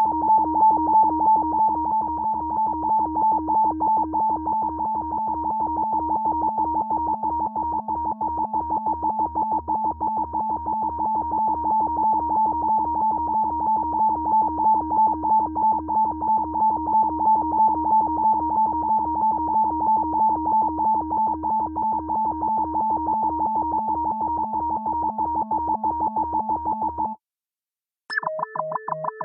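Synthesized FM beep repeating in rapid, steady pulses, a bright tone over a lower one. It cuts off suddenly near the end, and after a short silence a second, higher variant begins with a quick downward sweep and pulses on.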